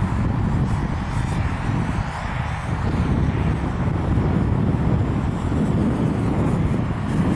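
Walkera F210 racing quadcopter's brushless motors and propellers buzzing steadily as it flies past, over a strong low rumble.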